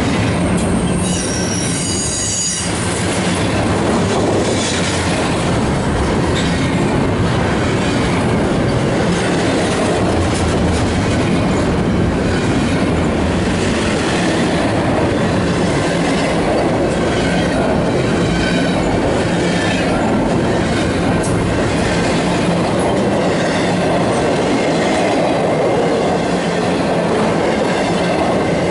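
Union Pacific double-stack intermodal freight cars rolling past close by: a steady, loud rumble of steel wheels on rail, with a brief high squeal about a second in.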